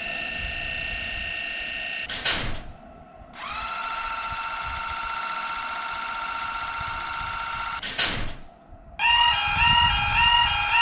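Steady electronic whine with overtones, like an electric train motor's hum, held for about two seconds, cut by a whoosh, then back for about four and a half seconds, sliding up in pitch as it starts, and cut by another whoosh. About nine seconds in, a repeating pattern of short rising electronic tones begins.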